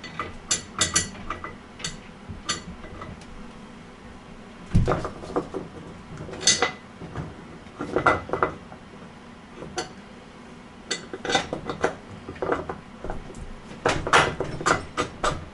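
Metal parts clinking and knocking as electric-bike parts are fitted by hand: irregular clusters of sharp clicks, with one heavier knock about five seconds in.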